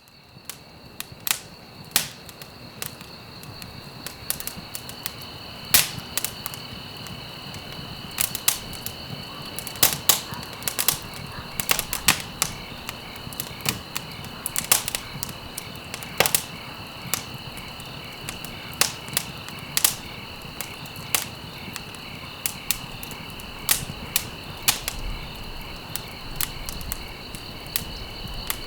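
Campfire crackling, with irregular sharp pops and snaps of burning wood, several a second, over a low steady hiss of flame. A steady high-pitched insect chorus runs underneath.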